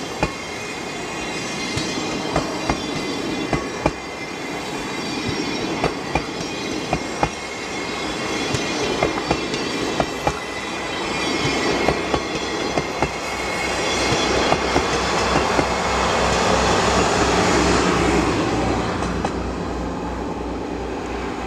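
Sleeper express 'Akebono' blue-train coaches rolling along the platform, wheels clicking sharply over the rail joints above a steady rumble. The rumble swells louder about two-thirds of the way through, then eases slightly.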